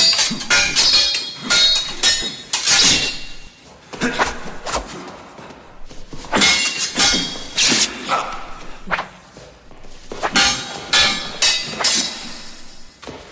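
Metal swords clashing in a duel: flurries of sharp ringing blade strikes, several in quick succession, with short pauses between the exchanges.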